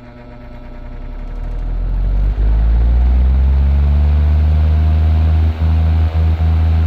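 Vintage 16-inch table fan started on high speed: the motor and blades spin up, the sound rising over about two and a half seconds, then running steadily with a loud hum and rush of air. A few brief dips in level come near the end.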